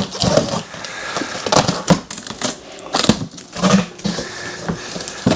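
Cardboard box being opened and its packing handled: irregular knocks, clicks and rustles.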